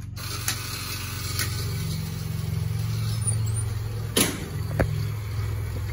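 1959 Seagrave fire engine's engine idling steadily, with a few sharp clicks or knocks over it.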